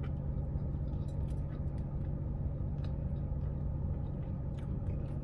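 Steady low hum of a car idling, heard from inside the cabin, with a few faint clicks.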